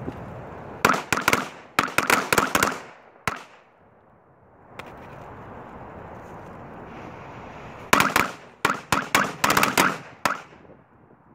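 Two small packs of Black Cat firecrackers going off, each a rapid string of sharp cracks lasting about two seconds. The first starts about a second in and the second near the end.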